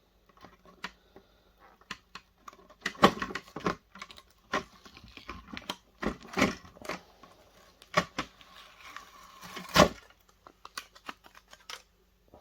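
Aluminium foil being peeled and torn off a small circuit board: crinkling and tearing among irregular clicks and knocks as the board and parts are handled, with several sharper knocks, the loudest near the end.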